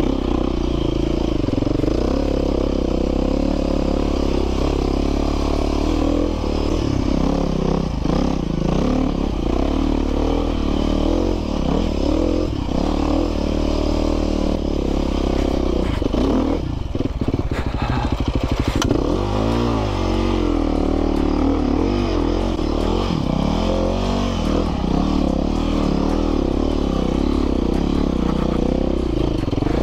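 Dirt bike engine running under constantly changing throttle, its pitch rising and falling as the revs come up and drop, with clatter and scraping from the bike working over rough trail.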